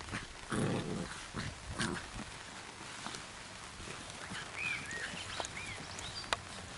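Labrador Retriever puppies playing and tussling over a toy, with scuffling and a short low growl about half a second in. A few short high chirps sound a little past halfway.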